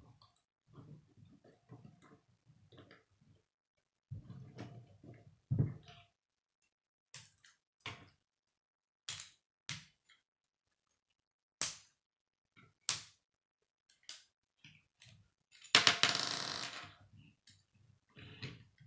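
Plastic K'nex pieces being handled and snapped together: scattered sharp clicks and short rattles, with a longer burst of clattering about sixteen seconds in.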